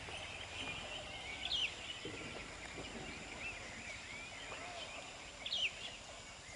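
Birds calling outdoors: scattered short, high chirps and whistles throughout, with two louder calls about a second and a half in and near the end, over a faint steady background hiss.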